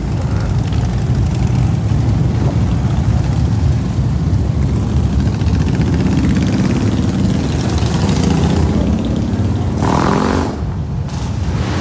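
Large touring motorcycles and trikes rumbling past one after another in a slow procession. One engine rises in pitch as it accelerates past, ending in a short louder burst about ten seconds in.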